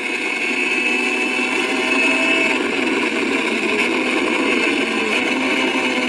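MV Agusta racing motorcycle engine running hard on track, heard through a TV's small speakers. The note is steady, drifting slowly up and down in pitch, and has no deep bass.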